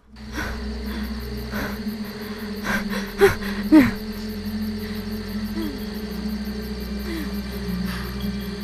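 Horror trailer soundtrack: a steady low droning tone with a faint, evenly repeating high ticking above it. A few short falling swoops come about three to four seconds in.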